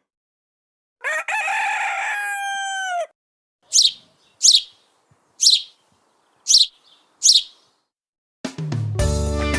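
Bird calls: one long call lasting about two seconds, then five short high chirps about a second apart, each falling in pitch. Guitar music starts near the end.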